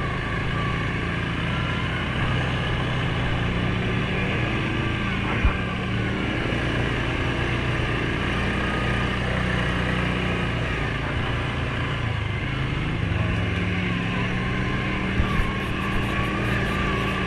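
2019 Suzuki KingQuad 750 ATV's single-cylinder four-stroke engine running steadily under way on a dirt trail, its pitch dipping about twelve seconds in and climbing again. A couple of short sharp knocks stand out, one about five seconds in and one near the end.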